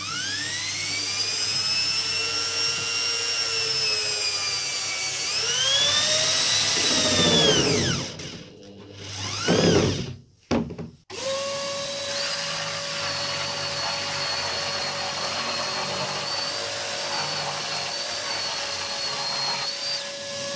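Electric drill running into a pine batten. Its motor spins up, drops in pitch under load and recovers, then stops, with one short second burst. After that a jigsaw runs steadily for about ten seconds, cutting an OSB board.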